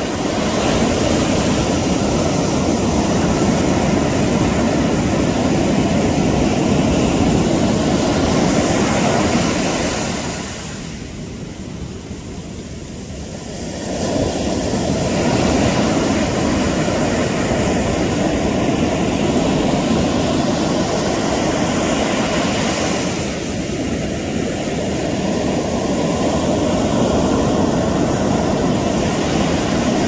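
Pacific Ocean surf: waves breaking close by and foam rushing up the sand in a steady roar of noise, which eases for a few seconds near the middle and again briefly later before swelling back.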